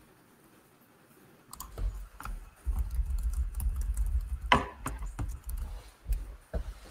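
Scattered sharp clicks and knocks over low thumping handling noise, close to the microphone, starting about a second and a half in. The loudest single click comes about four and a half seconds in.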